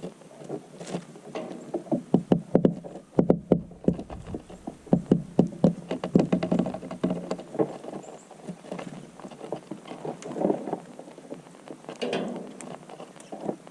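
Quick, irregular runs of small taps and knocks, densest from about two to seven seconds in, with scattered softer ticks after.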